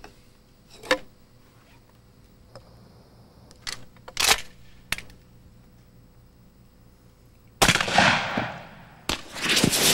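Pump-action shotgun being handled and its slide racked: a few sharp clicks and clacks. Then two loud shots, one nearly eight seconds in and another about a second and a half later, each trailing off slowly, as smoke rounds are fired.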